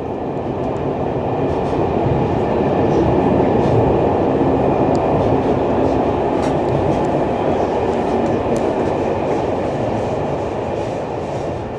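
Railway carriage running on the track, heard from inside: a steady rumble of wheels on rails with a few faint light clicks. It swells up over the first few seconds and fades near the end.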